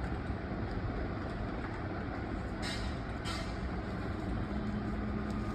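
Steady low rumbling background noise, with two short hissing bursts about two and a half and three seconds in.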